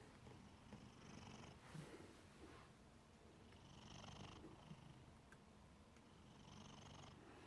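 Domestic cat snoring faintly in its sleep: three soft snoring breaths, roughly one every two and a half to three seconds.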